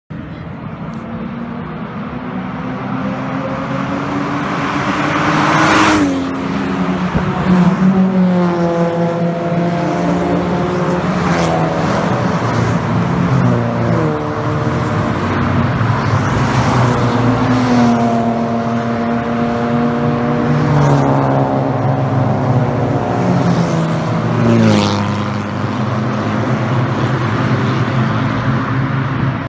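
Classic cars accelerating along a racetrack straight, their engines climbing in pitch and dropping back as they shift up through the gears, one after another. Cars pass close by about 6 seconds in and again near 25 seconds.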